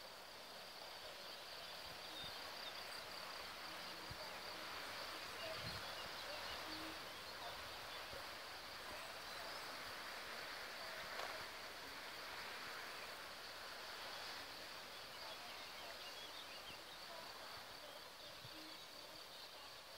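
Faint steady outdoor ambience: a constant high-pitched hum like insects, over a soft hiss, with a few faint chirps.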